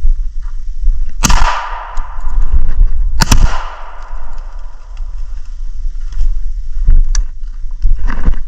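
Two shotgun shots about two seconds apart, each followed by a ringing echo. Wind rumbles on the microphone throughout.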